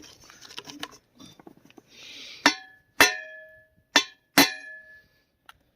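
Four sharp hammer blows on a new driveshaft U-joint's steel yoke, in two pairs, each ringing briefly: striking the joint to loosen it after its bearing caps are seated, because it is still too stiff to rotate freely.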